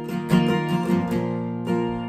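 Acoustic guitar being strummed: a few strokes, the chord ringing on between them.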